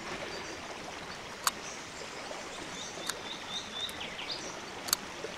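Quiet outdoor background with a bird chirping a short run of quick high notes in the middle, and three sharp clicks, the first about a second and a half in and the loudest near the end.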